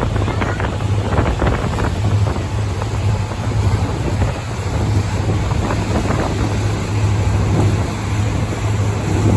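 Speedboat engine running steadily under way, a constant low hum, with wind buffeting the microphone and water rushing past the hull.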